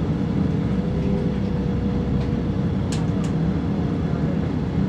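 Steady low rumble of a diesel multiple-unit train heard from inside the carriage while it stands at a platform, with a constant hum running through it. Two short clicks come about three seconds in.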